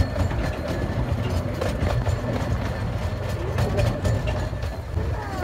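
Miniature-railway carriage running along a 15-inch-gauge track, heard from aboard: a steady low rumble of wheels on rail with a few scattered clicks.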